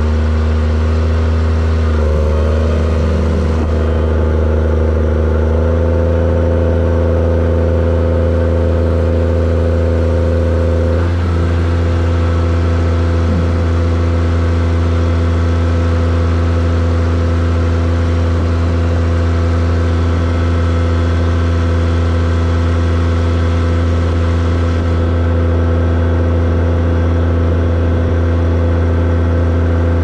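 New Holland T7030 tractor's six-cylinder diesel engine running steadily at raised revs, heard from the cab. Its pitch steps up about two seconds in and settles to a slightly different steady speed about eleven seconds in.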